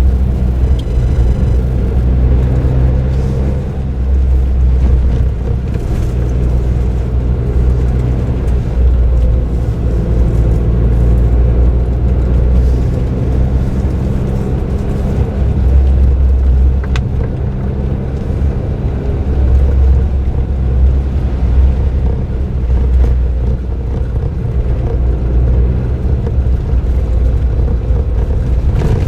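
Suzuki Jimny JB23W's small turbocharged three-cylinder engine and its aftermarket muffler, with tyre and road noise, running steadily while driving. A heavy low rumble swells and eases a little at times.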